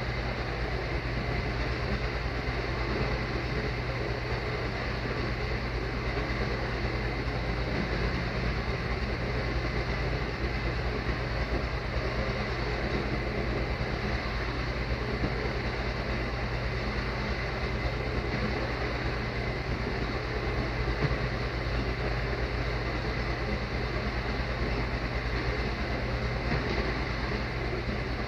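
Metal ball rolling around the curved track of a gravity-well orbit demonstration machine, a continuous rumble over a steady low hum.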